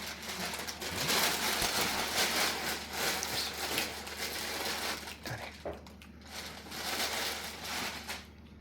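Paper tearing and crumpling in bursts, as a wrapped gift is unwrapped by hand. The rustling is loudest in the first few seconds and thins out toward the end.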